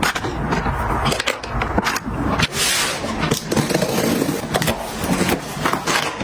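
Household items being handled and put in place: a rapid run of clicks, knocks and scraping, with rustling between them.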